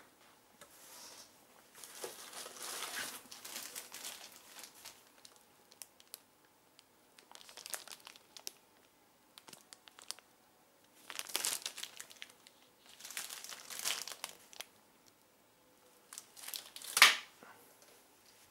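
Clear plastic packaging crinkling in several short bouts as a pack of firework tubes is handled. A single sharp knock, the loudest sound, comes near the end as the pack is put down on the wooden floor.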